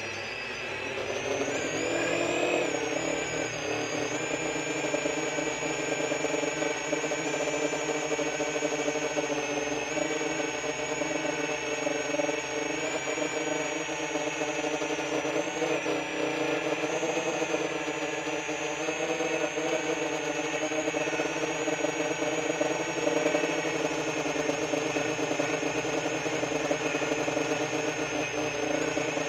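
A 10-inch FPV quadcopter's four brushless motors and propellers whining as it flies, picked up by the drone's own onboard recorder. The pitch climbs over the first couple of seconds, then holds fairly steady with small wavers as the throttle shifts.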